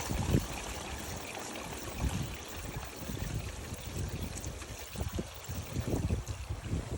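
LG TurboDrum direct-drive top-loading washing machine running a cycle, with water trickling and moving in the tub and irregular low thumps.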